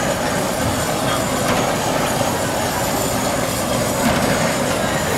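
Steady sizzling and crackling of an emperor crab shell and its sauce grilling over a charcoal fire.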